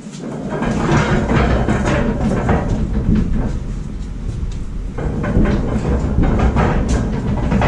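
Casters of a homemade steel gantry crane rolling across a concrete shop floor under the weight of a hanging metal lathe: a continuous rumble with clattering, starting about half a second in.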